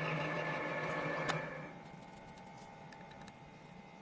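Drilling machine running steadily with a humming tone as a combination drill-tap bit cuts a thread through a metal plate. A click comes about a second and a half in, then the machine sound dies away, leaving only faint ticks.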